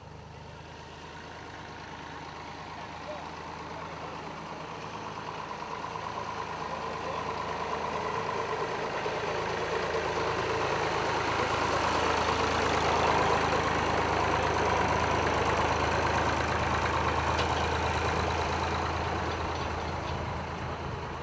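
An old tractor engine running at a steady low speed. Its sound slowly swells to a peak about two thirds of the way through, then eases off.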